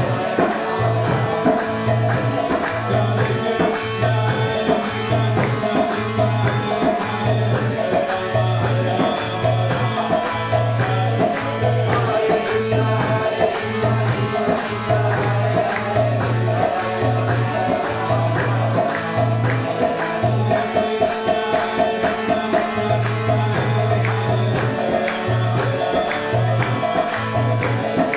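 Kirtan music: a harmonium plays held chords over a steady low drum beat about once a second, with bright metallic jingling keeping time.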